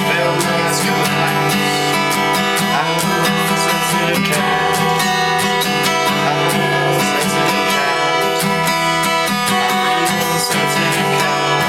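Music: an acoustic guitar strummed steadily, with a regular beat of strokes.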